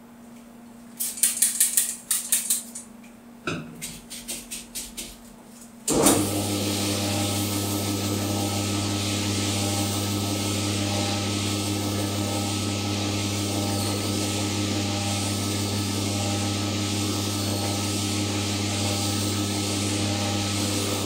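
Quick clicks and rattles, then about six seconds in a bowling ball spinner's motor starts with a thump and runs steadily with a low hum. A tan 3M Scotch-Brite pad held against the spinning bowling ball makes a loud, even hiss over the hum.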